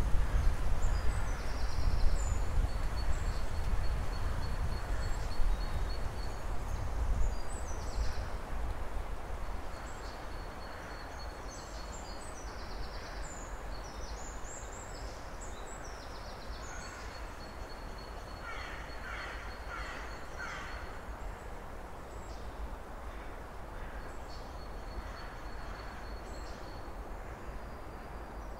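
Winter woodland ambience: small birds chirping and trilling in high notes throughout, over a low wind rumble on the microphone that is strong for the first several seconds and then eases off. About two-thirds of the way in, a quick run of about five lower calls.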